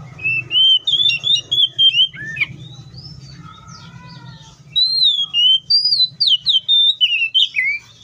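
Oriental magpie-robin singing: two loud runs of rapid, varied whistled notes, the first lasting about two seconds and the second starting about five seconds in, with a quieter warbled phrase between them. A steady low hum lies beneath.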